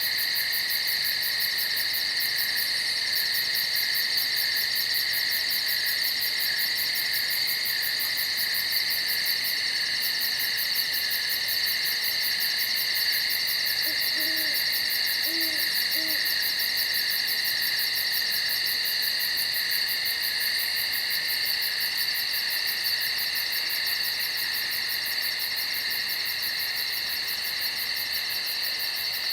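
Steady night-insect chorus: a continuous high-pitched drone with a fast, even pulsing trill above it. About halfway through, an owl hoots softly three times in quick succession.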